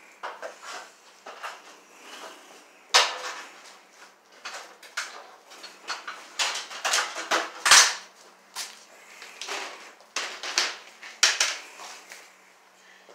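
Irregular clinks, knocks and rattles of hand tools and metal hardware being handled and sorted through, with two louder clacks, one about three seconds in and one near the middle.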